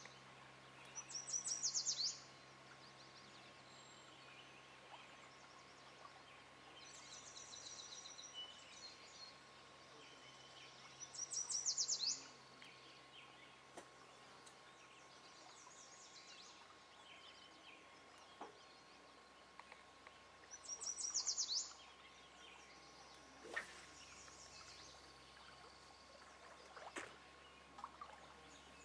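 A songbird singing a short, high, rapid song three times, about ten seconds apart, with softer bird chirps in between. A single sharp click sounds about two-thirds of the way through.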